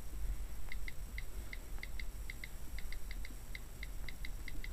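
Apple iPad on-screen keyboard key clicks as someone types fast: a slightly irregular run of short, identical ticks, about five a second, starting just under a second in.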